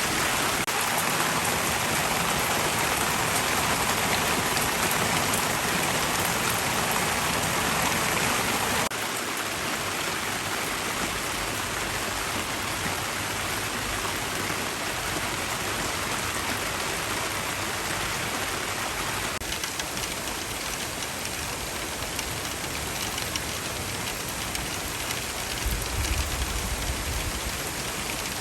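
Heavy rain pouring down steadily in an intense downpour, its hiss dropping a little in level about nine seconds in. A brief low rumble sounds near the end.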